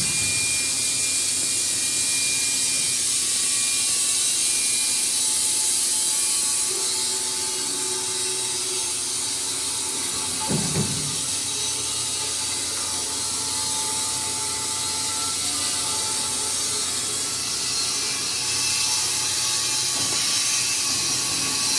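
Wood-Mizer industrial band sawmill running, its blade hissing steadily through a poplar log; the sound eases slightly about seven seconds in. A brief thump about ten seconds in.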